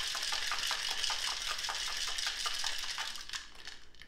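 Boston-style cocktail shaker, a metal tin capped with a glass, shaken hard with ice: a rhythmic rattle of about four shakes a second that dies away about three seconds in. The drink is being mixed, chilled and foamed.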